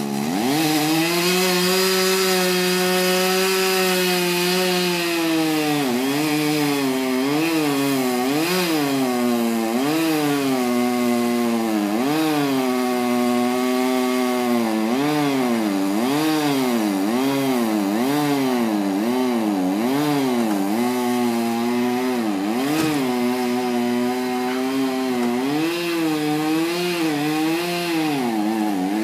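Two-stroke chainsaw cutting into the base of a large tree trunk. It revs up to full throttle at the start and holds a high, steady pitch. From about six seconds in, the pitch repeatedly drops and climbs back, roughly once a second, as the chain bogs under load in the cut and clears.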